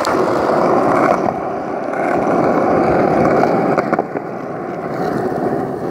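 Hard wheels rolling fast over rough concrete and asphalt: a steady gritty rumble that eases a little about four seconds in.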